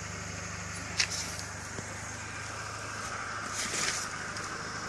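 Steady hum of an idling car engine, with one sharp click about a second in and a short hiss near the end.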